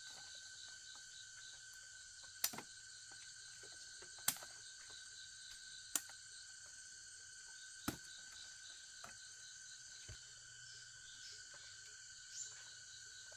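Forest insects droning steadily, with a rapid pulsing chirp over a high hiss. Sharp knocks or snaps cut through it four times at roughly two-second intervals in the first eight seconds, then a few fainter ones.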